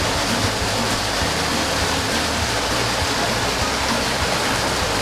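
Steady rush of running water, a constant noise with no breaks.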